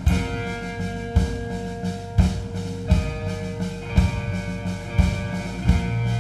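Live band playing an instrumental passage: held notes ring over a drum kit, with a heavy drum hit about once a second.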